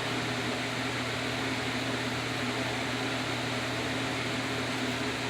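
A steady mechanical whir with a low, even hum, like a small motor running continuously.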